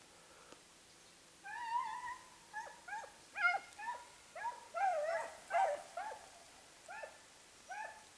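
Basset Fauve de Bretagne hounds giving tongue on a rabbit's trail. Short yelping calls start about a second and a half in, about a dozen of them, some overlapping as more than one hound calls at once.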